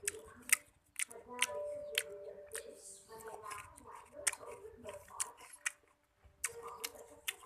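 Person chewing slices of sour shaken mango: a string of sharp, wet mouth clicks, several a second, pausing briefly near the end.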